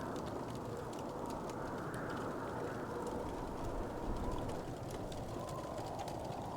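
Wood fire crackling, with frequent small sharp pops over a steady low rumble.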